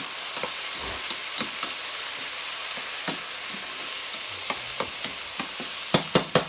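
Breaded chicken cutlets frying in shallow olive oil with a steady sizzle that keeps going though the burner under them has just been switched off, while vegetables sauté in a second pan. Scattered small clicks from the vegetables being tossed, then a few sharp clacks of metal tongs against the pan near the end.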